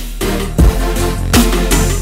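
Electronic music with a heavy bass line and a steady, strong beat.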